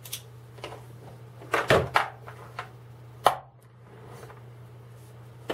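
Small chrome-vanadium hand-tool pieces clicking against each other and into a plastic tool case, as a socket or bit is handled on a screwdriver handle and set back in place. About seven sharp clicks, loudest about three seconds in, over a faint steady low hum.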